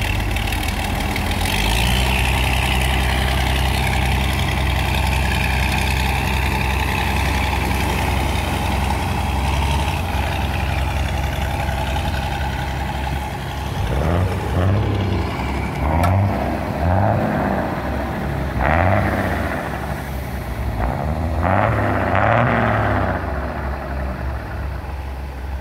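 Mercedes diesel engine running hard at steady revs, then revved up and down repeatedly in the second half. It bellows as it accelerates.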